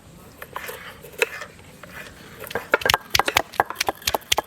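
Knife chopping garlic on a wooden cutting board: a few scattered taps, then from a little past halfway a run of quick, sharp, uneven knocks.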